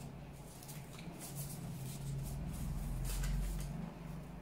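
Faint handling of a deck of oracle cards: a card dropped and slid across a velvet cloth, with a few soft clicks. Under it runs a low hum that swells in the middle.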